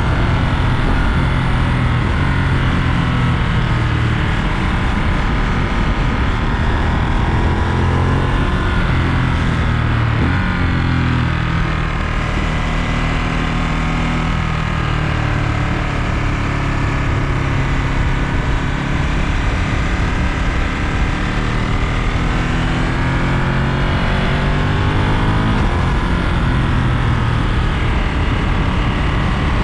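Ducati Monster 937's 937 cc Testastretta L-twin engine running under way, its pitch rising and falling over several seconds as the revs climb and drop, over a steady rushing noise.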